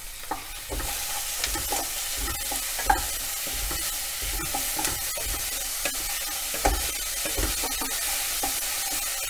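Chopped red onions sizzling in hot oil in a metal pan while being stirred and sautéed with a wooden spatula, which scrapes and knocks against the pan over and over. The sizzle grows louder about a second in.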